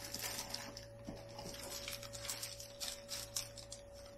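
Quiet handling noise: soft rustles and light clicks as plastic-bagged parts are moved about in a hard plastic instrument case, over a faint steady whine.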